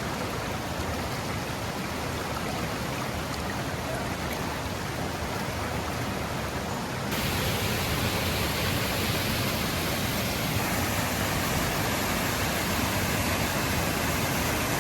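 Steady rush of river water tumbling over rocks and small waterfalls. About halfway through it jumps suddenly louder and hissier, as from a nearer stretch of falls.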